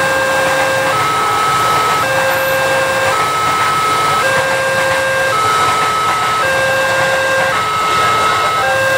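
Railway level-crossing warning alarm sounding: an electronic signal that switches between two pitches, each held about a second, over the steady rush of a passing electric commuter train.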